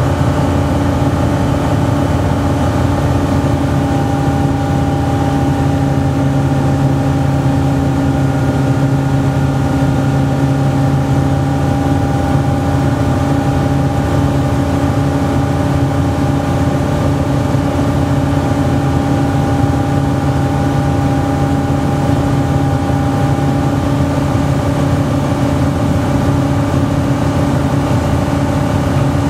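Light aircraft's piston engine and propeller running steadily at cruise power, heard from inside the cockpit as an even, unchanging drone.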